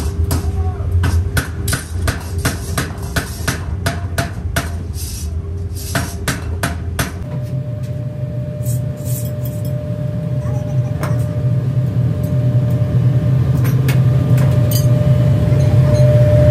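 Rapid hammer blows on metal, about three or four a second, over a steady machine hum. The blows stop about seven seconds in, leaving the machine running with a steady tone and an odd click.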